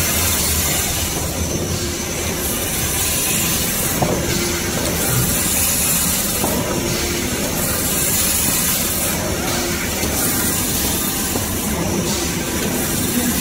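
Automatic band saw cutting machine for maxi toilet tissue rolls running: loud, steady mechanical noise with a hiss, its sound shifting in a repeating cycle about every two and a half seconds.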